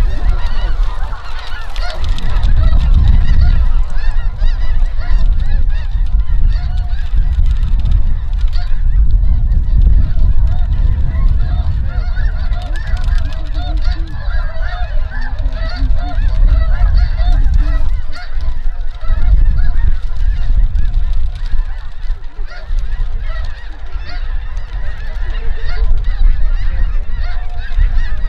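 A large flock of snow geese calling overhead: a dense, unbroken chorus of high, yelping honks from hundreds of birds, over a low rumble.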